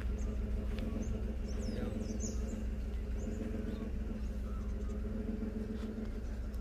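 A motor hums steadily at an even pitch, with a few faint, short bird chirps high above it.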